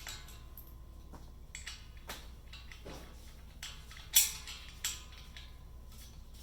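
Small metal wheel-mounting hardware (bolt, washers, bushing and nut) clinking and tapping as it is handled and fitted to the compressor's wheel, a series of scattered clicks with one sharper clink about four seconds in.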